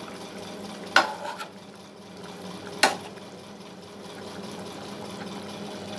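A spatula stirring squid adobo simmering in a pan, knocking sharply against the pan twice, about a second and about three seconds in, over a faint steady simmer of the sauce.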